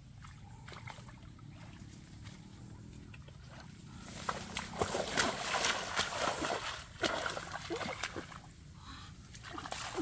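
Hands splashing and sloshing in shallow muddy stream water while groping for fish. After a quieter start, a rapid run of irregular splashes comes from about four seconds in to about eight and a half seconds in, with a few more splashes near the end.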